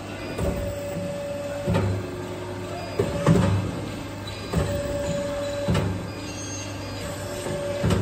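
CNC pipe bending machine moving axis by axis in manual mode: a steady pump hum under a series of short powered movements, each a whine lasting about a second, with clunks as each movement starts and stops.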